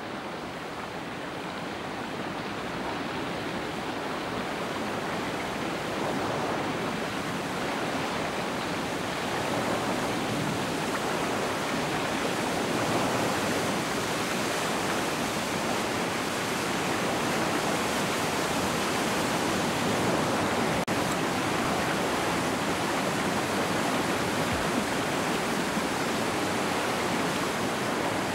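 Steady rush of heavy whitewater from the Fraser River's Hell's Gate rapid, swelling up over the first several seconds and then holding.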